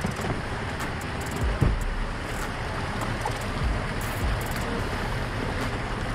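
Off-road vehicle running, heard from inside the cab as a steady low rumble and noise, with a couple of dull low thumps about a second and a half and three and a half seconds in.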